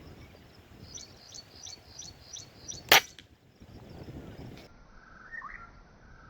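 A single sharp crack of an air rifle shot about three seconds in, the loudest sound. Before it a small bird chirps over and over, short falling notes about three a second, and more chirps follow later.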